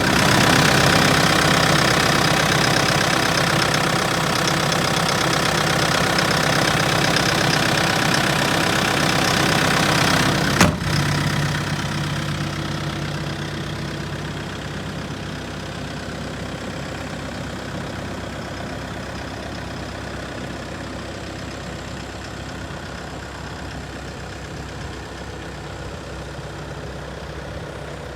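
Diesel engine of a Volvo ECR88D compact excavator running steadily. A single sharp click comes about ten seconds in, after which the engine runs quieter.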